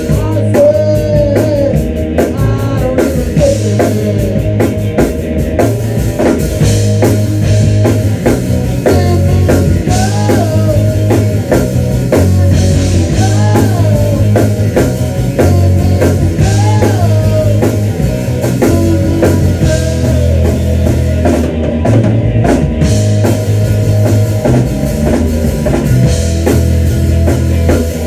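Rock band rehearsing live, playing loudly and without a break: drum kit, distorted electric guitar and bass guitar together.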